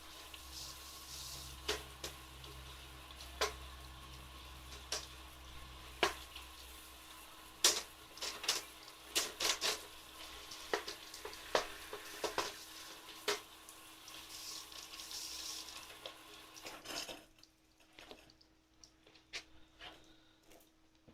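Running water rinsing a soot-covered wood-burning stove box, with scattered knocks and clinks as its parts are handled. The water stops about seventeen seconds in, leaving only a few light taps.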